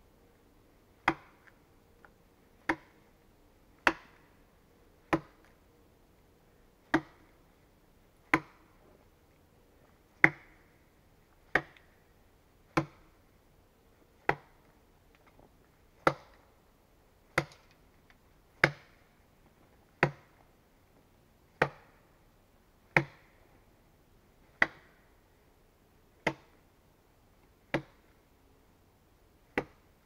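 An axe chopping into the side of a log as it is hewn into a beam: a steady run of about twenty sharp strikes, one every second and a half or so.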